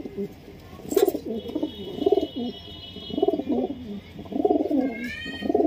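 Domestic pigeons cooing: a series of low coos, roughly one a second.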